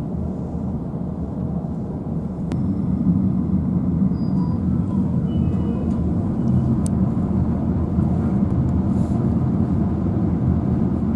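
Commuter train's steady low running rumble heard from inside the carriage, growing louder about two and a half seconds in.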